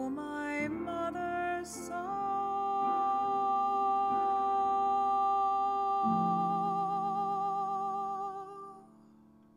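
A woman singing the final phrase of a ballad with piano: a few moving notes, then one long held note with vibrato. A low piano chord comes in under it about six seconds in, and voice and piano fade out near the end.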